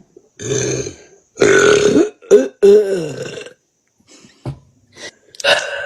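A young woman burping loudly several times in a row: three long, drawn-out burps with a short one between them in the first three and a half seconds, then shorter, fainter ones near the end.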